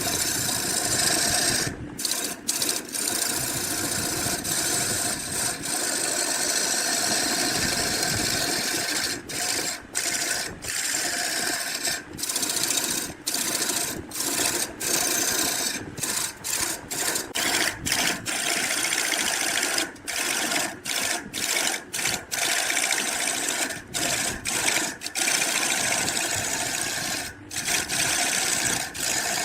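A tool working wood with a steady rasping noise, stopping briefly many times as it is lifted or repositioned.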